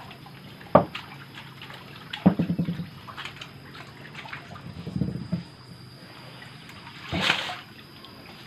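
Water trickling and sloshing in a concrete pond, with a few short louder splashes.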